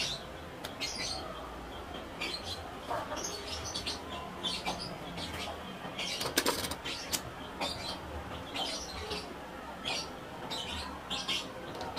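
Small birds chirping in short, scattered calls, with a single sharp click about six and a half seconds in.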